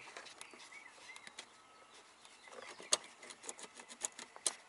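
Faint scattered clicks and taps, with two sharper clicks about three seconds and four and a half seconds in: a voltmeter probe and its lead being handled and touched against metal in search of a ground point.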